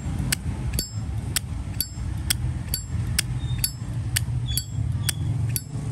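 Zippo lighter lid being flicked open and snapped shut over and over, about two clicks a second, each with a bright metallic ring. The owner calls it a nice sound that is not too harsh, the mark of a lid that works lightly.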